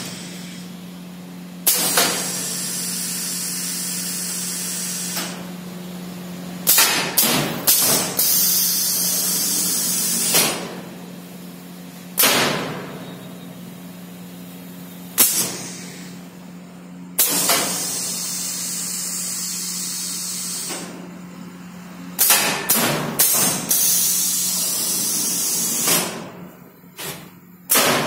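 Pneumatic cylinders on a steel rig, driven by solenoid valves, cycling. Sharp metallic clacks come as the valves switch and the pistons hit their stops, some in quick runs of three or four. Long hisses of compressed air, a few seconds each, run between them over a steady low hum.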